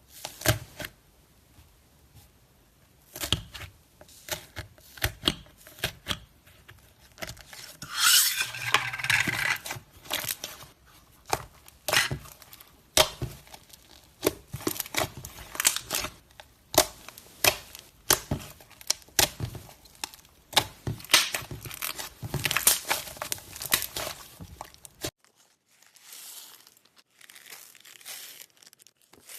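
Slime being squeezed, stretched and poked by hand, giving many sharp clicks and pops of trapped air, with a denser crackling stretch about eight seconds in. Near the end it turns quieter and softer.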